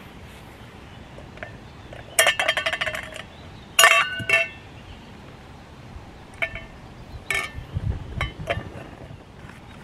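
Camp cookware clinking: two loud knocks that ring on for close to a second, about two and four seconds in, then several lighter clinks and a low thump.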